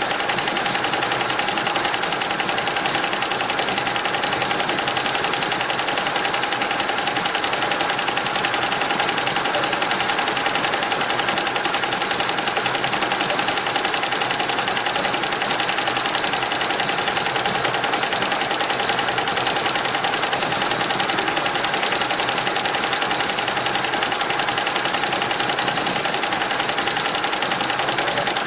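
Richpeace roll-to-roll multi-head embroidery machine stitching: a fast, steady rattle of needle strokes with a steady whine beneath.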